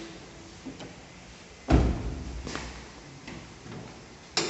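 A few clunks and knocks of handling around a car, the loudest a single heavy thump about two seconds in, followed by a lighter knock and a sharp knock near the end.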